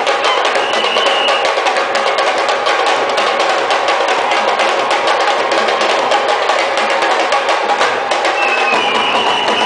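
Sabar drum ensemble playing fast, dense strokes with sticks and bare hands, without a break. A high held tone sounds over the drums at the start and again near the end.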